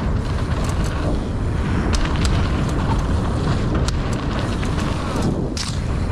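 Mountain bike riding fast down a dirt singletrack: steady wind and tyre rumble on the onboard camera's microphone, with sharp clicks and knocks from the bike rattling over bumps.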